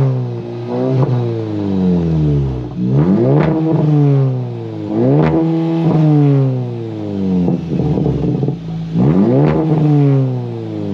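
Audi S3 8V's turbocharged 2.0 TFSI four-cylinder engine revved repeatedly from idle by blips of the throttle: the revs climb quickly, then fall back slowly to idle, several times. The tune does not yet give it pops or crackles on the overrun.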